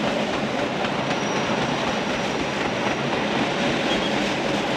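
Metre-gauge car-carrying shuttle train rolling past, its wagons and rear passenger coach giving a steady rolling noise of wheels on the rails.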